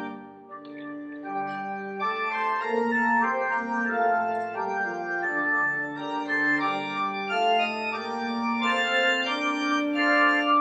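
Church organ playing held chords that change about every second, with a brief drop in loudness about half a second in before the playing swells again.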